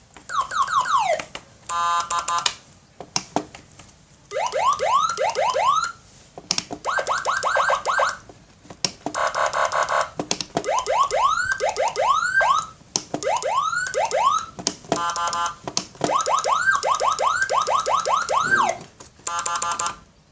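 A double-tone, 12-sound electronic siren cycling through its patterns: falling wails, fast rising whoops, rapid pulsing beeps and chirps, each lasting a second or two. Short breaks and sharp clicks fall between the patterns.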